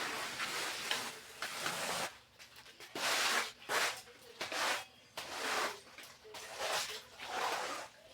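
Scrubbing a refrigerator clean: a run of irregular rubbing strokes, about one to two a second.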